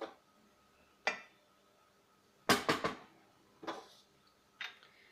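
Kitchenware knocking and clinking: a wooden spoon and a steel plate striking a pan as rice is spread in it. There are single knocks near the start and about a second in, a quick loud run of clinks about halfway, and two lighter knocks near the end.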